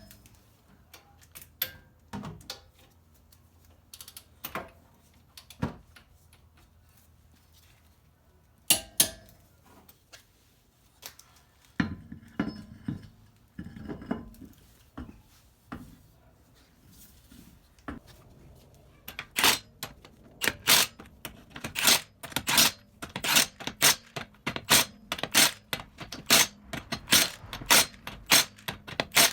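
Metal hand tools and parts clinking and knocking during car repair work, with scattered sharp clicks at first, then a quick run of loud metallic clicks, two or three a second, over the last ten seconds.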